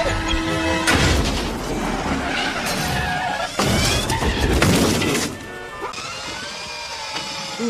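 Cartoon soundtrack: music with crash sound effects, a sharp one about a second in and a longer crashing burst from about three and a half to five seconds in, quieter after that.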